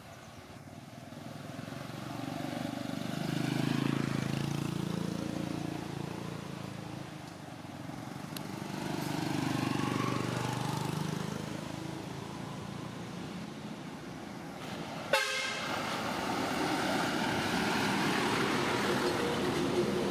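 Motor vehicles passing by one after another, the engine sound swelling and fading about 4 and 10 seconds in. A sharp knock comes about 15 seconds in, followed by a steady engine hum.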